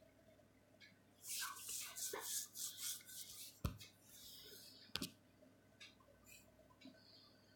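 Handling noise close to the microphone: a scratchy rubbing and rustling for about two seconds, then two sharp knocks about a second apart.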